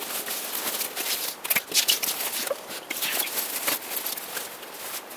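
Rustling of a Crua Cocoon insulated tent's quilted fabric as the partly inflated tent is handled and lifted upright, in an irregular run of scrapes and crinkles.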